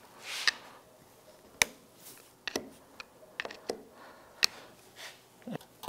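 A flat steel tool working a retaining clip down into its groove on a Honda Goldwing GL1800 clutch assembly: about ten irregular sharp metal clicks, with light scraping between them.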